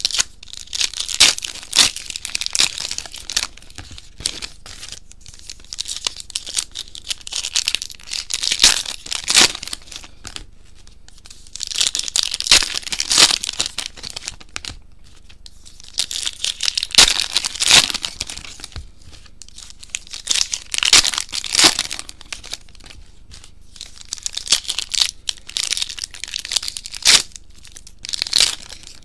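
Trading card pack wrappers being torn open and crinkled by hand, in repeated bursts of a couple of seconds each with short pauses between.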